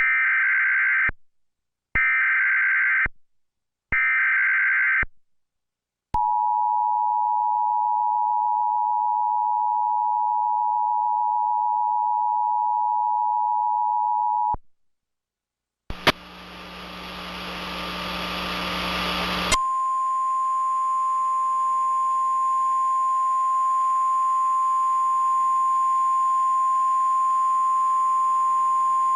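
Emergency Alert System signal: three short screechy digital header bursts, then the two-tone attention signal held steady for about eight seconds. After a brief pause comes a rush of static, then a single steady tone of about 1 kHz, the Weather Radio warning tone, which heralds a National Weather Service tornado warning.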